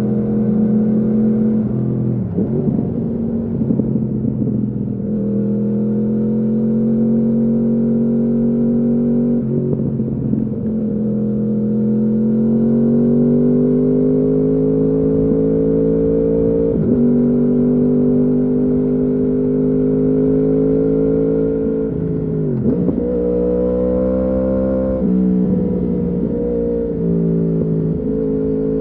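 2015 Yamaha R1's crossplane inline-four running through a full Akrapovič exhaust, pulling steadily under load with the note climbing slowly. The pitch drops sharply about five times as it shifts gears with the quickshifter.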